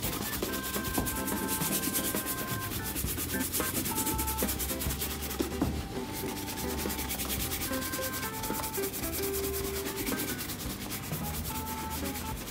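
Hog-bristle shoe brush with a wooden back swept rapidly back and forth over the leather upper of a Red Wing 9875 boot, an even, fast scrubbing rhythm. This is the final light brushing that finishes the shine after conditioning.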